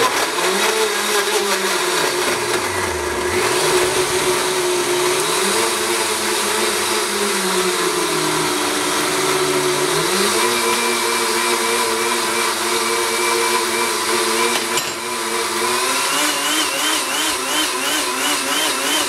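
Champ HP high-power blender running in an Alterna jar, blending avocado, spinach, grapefruit, cucumber and water into a thick green smoothie. The motor's pitch sags twice early on as the load catches, then wavers in the last few seconds.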